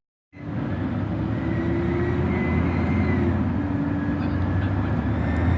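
Road and drivetrain rumble of a 2003 Chevy Silverado 5.3L V8 on the move, with a steady high-pitched squeal over it. The squeal comes from the worn AC belt tensioner/idler pulley.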